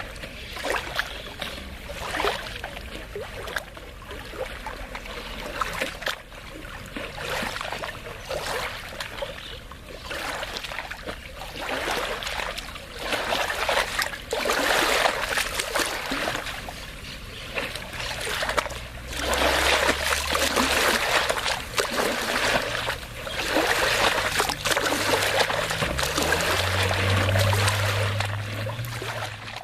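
Lagoon water lapping and splashing at the shore in uneven washes that swell louder in the second half. A low, steady motor hum joins partway through and steps up in pitch near the end.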